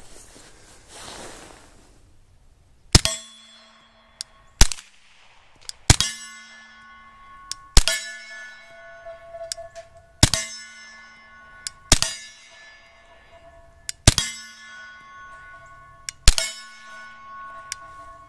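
Eight Gemtech Blackside suppressed 9mm shots with subsonic 147-grain full-metal-jacket rounds, about two seconds apart, each followed by the sharp ringing clang of an AR500 steel target. The ring dies away over about a second. The suppressed shots themselves are quiet next to the ringing steel.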